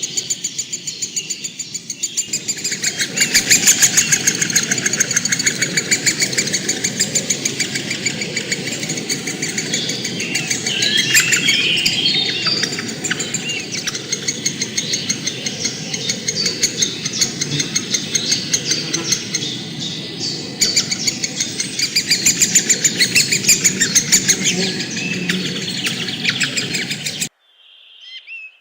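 Birds chirping loudly in a dense chorus of rapidly repeated high calls over a low rushing background. The sound cuts off suddenly near the end, and a few separate chirps follow.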